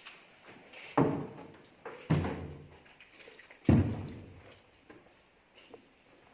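A door banging shut three times, heavy bangs spaced a second or more apart, each echoing off bare walls as it fades.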